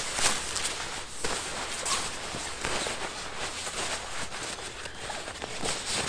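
Nylon fabric of a padded jacket rustling as it is crumpled and stuffed into a backpack, an uneven scratchy swishing with small crackles throughout.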